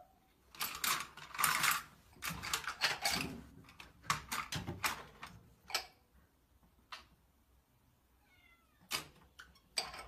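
A cat's cries: a run of short, harsh bursts over the first five seconds, then a brief falling meow near the end, with a few sharp clicks in between.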